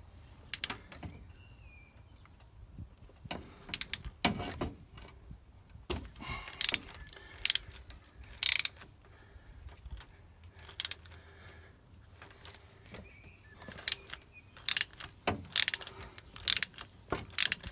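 Irregular metal clicks and clinks of socket tools (an oil filter cup socket on an extension and swivel adapter) being handled and fitted onto the oil filter housing cap, with some ratchet clicks.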